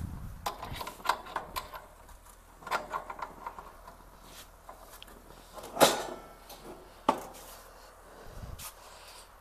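Clatter of a cast-iron loaf pan being handled and lifted off the grates of a gas grill: a run of light clicks and scrapes, then two sharp metal knocks about six and seven seconds in.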